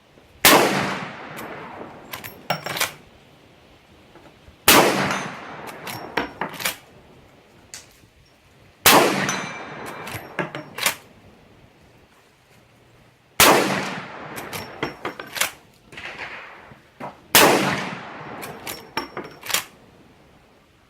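Five single rifle shots, about four seconds apart, each with a ringing echo tail. Between the shots come clusters of sharp metallic clicks and clinks.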